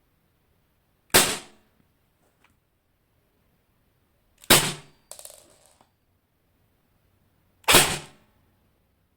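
Three airsoft gun shots into an aluminium sheet at close range, each a sharp crack with a short decay, about three seconds apart. A brief faint rattle follows the second shot.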